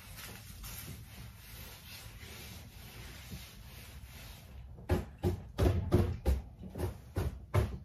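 Cloth wiping along a wooden shelf, a steady rubbing. About five seconds in it gives way to a run of sharp knocks and thumps, around eight in quick succession, louder than the wiping.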